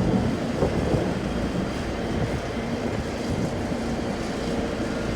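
Steady low rumble of machinery with a faint, even hum.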